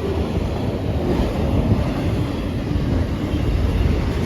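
Freight train rolling past, a steady low rumble, with wind buffeting the microphone.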